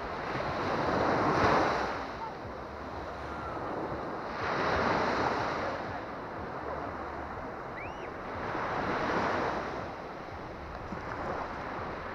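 Small Baltic Sea waves breaking and washing up the sand at the water's edge, the surf swelling and fading about every four seconds, with some wind noise on the microphone.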